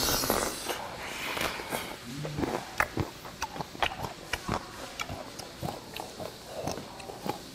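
Close-miked eating sounds of a man chewing boiled native chicken torn off the bone: irregular wet smacks and clicks of lips and teeth. A short breathy rush of air comes right at the start.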